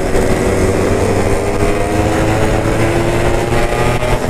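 Yamaha RX-King two-stroke single-cylinder motorcycle engine running under way, its note drifting slowly up in pitch and then easing back.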